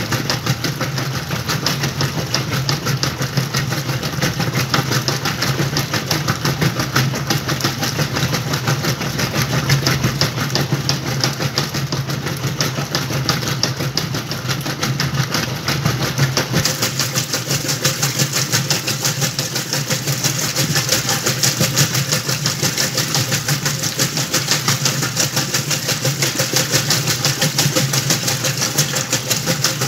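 Whirlpool washing machine running a load of towels: a steady motor hum with a fast, even pulsing. About halfway through, the sound shifts: a hiss comes in over it and the low rumble thins.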